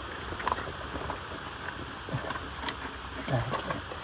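Faint, scattered clicks and light knocks from hand work on a car's underside, over a low steady background rumble.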